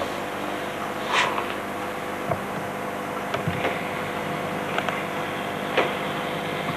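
Scattered small clicks and rustles of a flat black case being handled, over a steady background hiss and hum.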